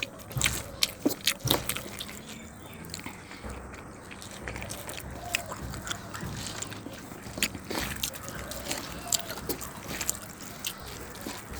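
Close-up eating sounds: wet squelching and smacking of rice and curry being eaten, with sharp clicks that come thickest in the first two seconds and then scattered.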